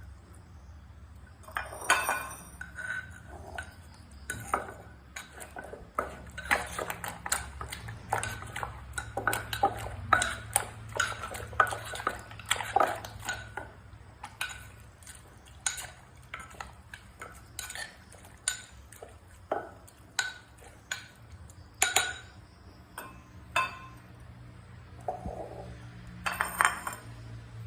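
A pestle and spoon knocking and clinking in a mortar as som tam (papaya salad) is pounded and mixed: irregular sharp knocks, roughly one or two a second, with scraping between them.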